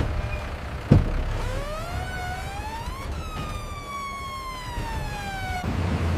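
Emergency vehicle siren giving one slow wail, rising for about two seconds and then falling, before cutting off suddenly near the end. A single sharp thump sounds about a second in, over a low rumble.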